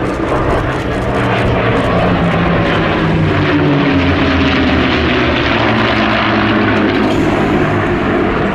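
The Packard Merlin V-12 engines of four P-51D Mustangs, running together in formation as they pass overhead. The engine note falls in pitch a few seconds in as the formation goes by.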